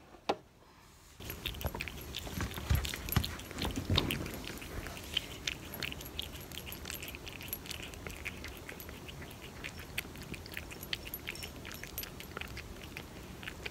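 A cat crunching dry kibble as she eats from a bowl: a quick, irregular run of small crunches and clicks that starts about a second in.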